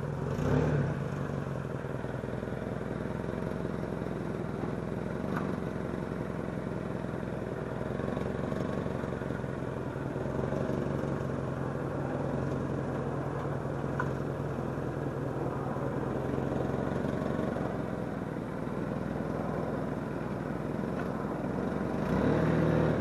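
The 2001 Toyota Camry's 2.2-litre four-cylinder engine running steadily with road noise, during a test drive on freshly fitted front brake pads. There is a brief louder swell about half a second in and again near the end.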